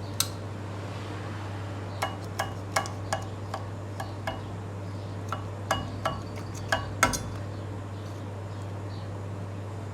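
Kitchen utensils clinking against dishes: about a dozen light, sharp clinks, some briefly ringing, spread over about five seconds, the loudest near the end, over a steady low hum.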